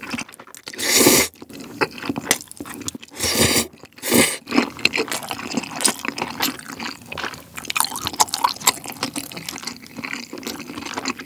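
A person slurping jjajangmyeon noodles in black bean sauce, three loud sucks within the first four seconds or so, then chewing the mouthful with many small close-up mouth clicks.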